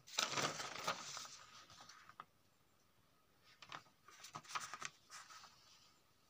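Paper rustling as a notebook page is turned and handled: a loud rustle through the first two seconds, then a second, shorter spell of rustling about three and a half seconds in.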